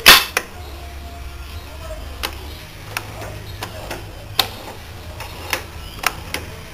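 Turret lathe gearbox being turned by hand: one loud metallic clack at the start, then scattered sharp clicks from the worm and gears. The shaft moves only very slowly and keeps binding, which the owner puts down to an oil-starved main bearing or, more likely, a bent shaft.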